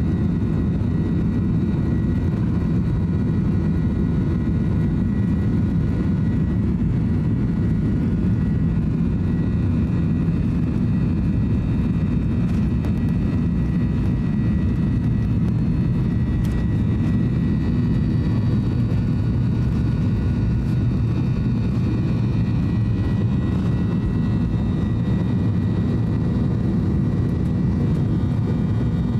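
Boeing 737-800 heard from inside the cabin during its takeoff run: the CFM56 jet engines and the rolling airframe make a steady, loud low rumble with a thin fan whine. A higher whine rises about two-thirds of the way through.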